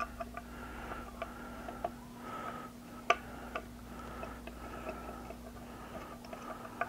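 Small precision screwdriver working the tiny screws of a QHYCFW3 filter wheel's housing: scattered light ticks and clicks, with one louder click about three seconds in.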